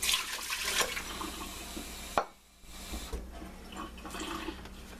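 Water poured from a cup over rice into a rice cooker's metal inner pot, loudest in the first second, then cutting off suddenly about two seconds in.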